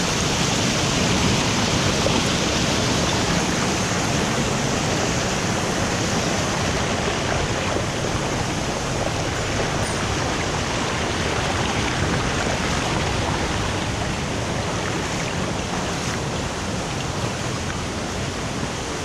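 Mountain stream rushing steadily over rocks: a loud, even roar of running water.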